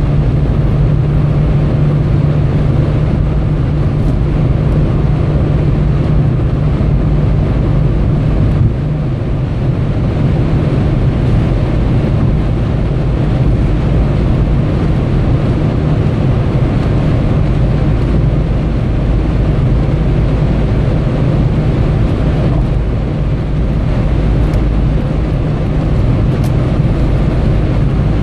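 Steady drone of a car at motorway speed heard inside the cabin: tyre and road noise with a strong, even low hum.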